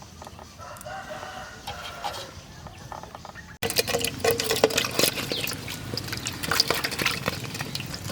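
Chickens clucking and a rooster crowing. About three and a half seconds in, an abrupt cut brings in louder, close clattering and clicking sounds.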